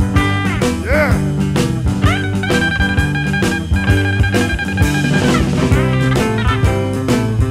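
Live blues band playing an instrumental passage with guitar, bass and drums. A high note bends upward about a second in and again about two seconds in, then is held for about three seconds.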